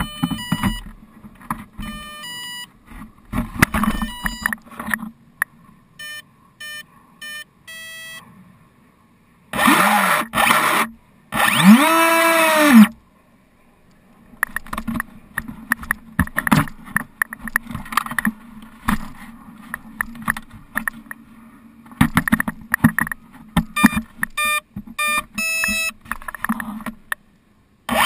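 Small craft's motor run up and down in two short bursts about ten to thirteen seconds in, its pitch rising and then falling. Around it are runs of short electronic beeps and handling knocks.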